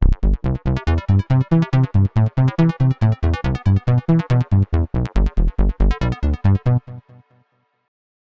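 UVI Cameo software synthesizer preset playing a fast sequenced pattern of short, bass-heavy electronic notes, about four a second, which stops about seven seconds in.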